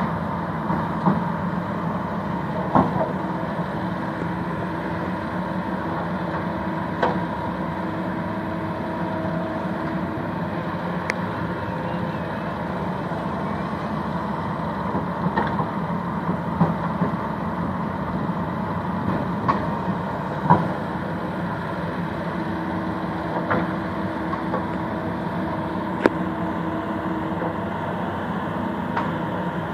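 Excavator's diesel engine running at a steady pitch while loading sand onto a tractor, with occasional short sharp knocks.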